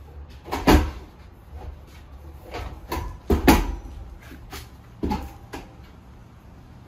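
Irregular metal clunks and knocks from a newly assembled steel fire pit being handled and checked for sturdiness, some six or seven in all, the loudest near the start and about halfway through.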